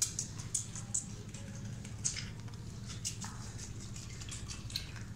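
Faint, irregular soft clicks and taps from a chinkara fawn feeding at a milk bottle, over a low steady hum.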